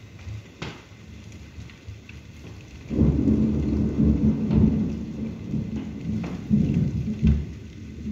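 Thunder from a lightning storm: a deep rumble breaks out about three seconds in and rolls on loudly, rising and falling, over steady rain with occasional sharp drips.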